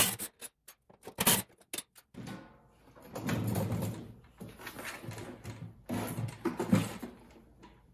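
A few sharp clicks and knocks, then a long rough scraping rumble with several swells as a DeWalt DWE7480 portable table saw is slid off its plywood base, its rear foot slipping out of a 3D-printed PLA mount.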